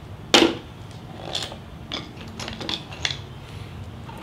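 A sharp click about a third of a second in, then several lighter metallic clicks and rustles as small hand tools are handled and a motorcycle's spoked wheel is turned by hand.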